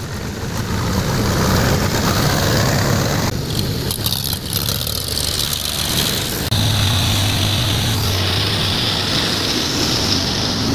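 Diesel engines of tractors and a backhoe loader running as they wade through a shallow river, with water churning and splashing around the wheels. Clips are edited together, so the sound changes abruptly about six and a half seconds in.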